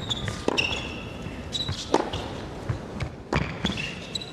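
Tennis rally on an indoor hard court: sharp racket strikes and ball bounces, with short high squeaks of shoes on the court between them.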